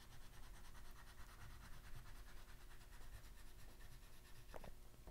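Faint scratching of a red oil pastel making short up-and-down strokes on paper, with a couple of small ticks near the end.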